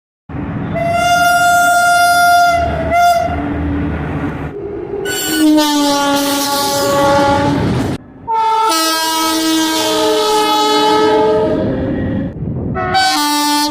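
Indian Railways locomotive horn sounding a series of loud blasts: a long steady blast, a short one, then two long blasts of several tones at once that shift in pitch, and quick short blasts near the end. Underneath is the low rumble of the train running.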